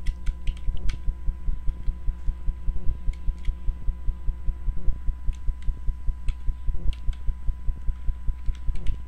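A low hum throbbing in a fast, even pulse, with a faint steady high tone. Faint computer keyboard key clicks come through it as text is typed.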